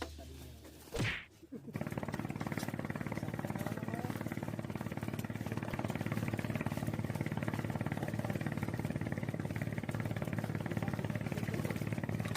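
An engine running steadily with an even, rapid pulse, starting about two seconds in after a short swish.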